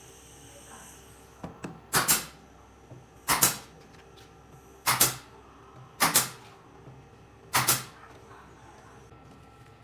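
Five short knocks, each a quick double hit, spaced about a second to a second and a half apart.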